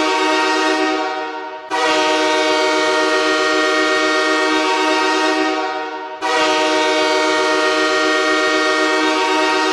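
Hockey goal horn sounding loud, long blasts of several notes at once, like a train air horn. The first blast fades out under two seconds in, a second runs until about six seconds in, and a third starts at once and holds steady.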